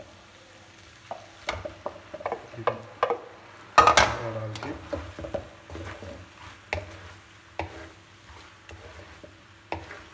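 Wooden spatula stirring macaroni and vegetables in a large metal pot, with irregular scrapes and knocks against the metal. The loudest knock comes about four seconds in and rings briefly.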